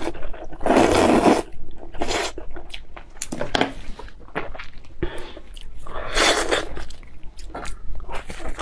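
Close-miked eating sounds: a long, loud slurp of noodles about a second in, then wet chewing with many small clicks, and a second loud rush of noise a little past the middle. Near the end comes a bite into a raw green vegetable.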